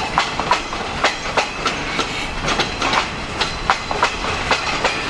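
Freight cars of a long Escanaba & Lake Superior train rolling past, wheels clicking over the rail joints in an uneven clickety-clack about three times a second over a steady rolling rumble, with faint thin high ringing tones.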